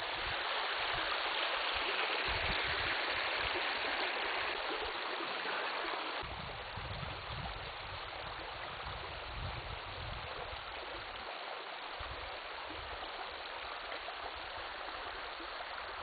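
Spring-fed stream water rushing and gurgling over rocks at the Kladissos river springs, a steady rush that is a little louder in the first few seconds and then settles, with irregular low rumbling underneath.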